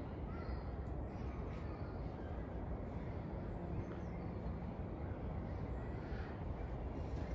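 Outdoor background noise: a steady low rumble, with a few faint short bird calls now and then.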